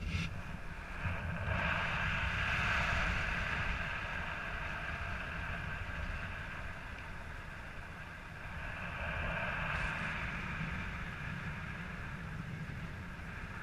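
Airflow rushing over a paraglider's harness-mounted camera in flight: a steady low wind rumble with a hiss that swells and fades twice.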